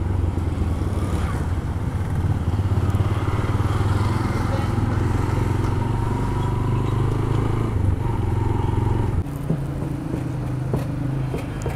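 Motorcycle engine running steadily, dropping in level about nine seconds in, with a few sharp knocks starting near the end.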